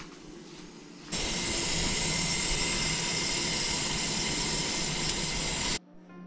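Steady hissing of a whole roast chicken broiling under a gas oven's broiler, starting abruptly about a second in and cutting off shortly before the end.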